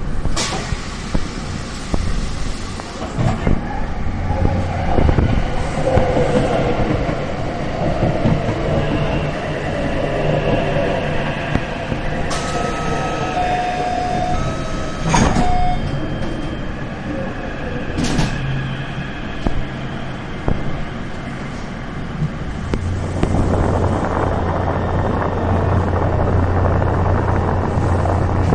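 Taipei Metro electric train heard from inside the car, with a continuous running rumble. About halfway through a short two-note electronic tone repeats a few times, and there are several sharp clacks. Near the end a steady low motor hum grows stronger.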